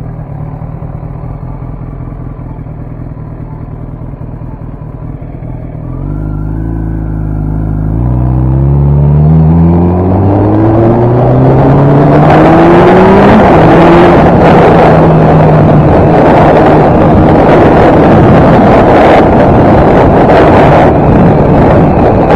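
Kawasaki ZX-10R's inline-four idling at a stop, then pulling away with revs climbing through the gears, with two upshifts about eight and thirteen seconds in. It then settles into a steady cruise under heavy wind noise on the microphone.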